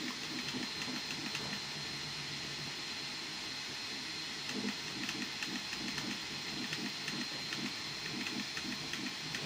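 Bambu Lab A1 3D printer at the end of a print: fans running with a steady hiss and a thin high whine. From about halfway through, short buzzing pulses about twice a second, typical of its stepper motors working through the finishing moves.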